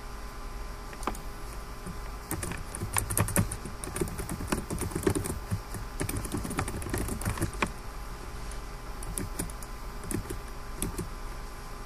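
Typing on a computer keyboard: a run of quick key clicks, busiest in the middle and thinning out near the end, over a faint steady hum.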